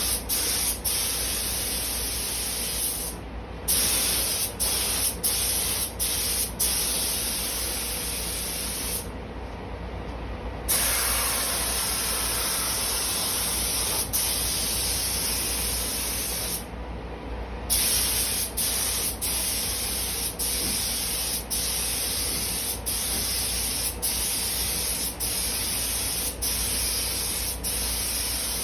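Compressed-air paint spray gun spraying in a steady hiss. It stops briefly each time the trigger is let go between passes: three longer breaks, about 3, 9 and 17 seconds in, and many short ones.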